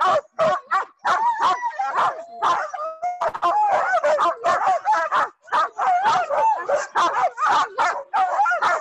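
A team of harnessed sled dogs, huskies among them, barking and yelping together without a break, several overlapping calls a second: the excited clamour of sled dogs being hooked up on the gang line, eager to run.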